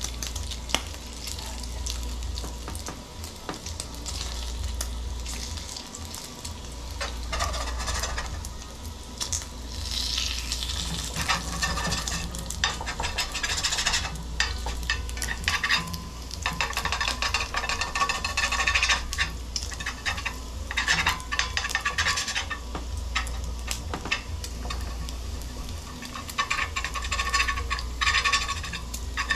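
Bacon frying in a cast iron skillet: a steady sizzle dotted with sharp crackles and pops, swelling louder in several spells.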